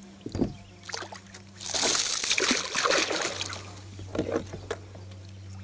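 A hooked peacock bass thrashing at the water's surface, with a loud burst of splashing and sloshing lasting under two seconds, followed by a few smaller splashes.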